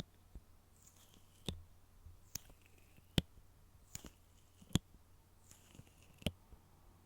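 Fingernails tapping on a box: sharp single taps roughly once a second, with faint scratching or tracing between them.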